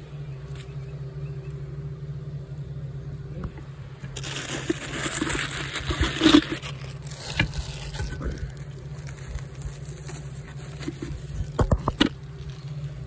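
Rubbing and rustling of fingers on a phone being handled, loudest from about four to seven seconds in, with a few sharp knocks near the end, over a steady low hum.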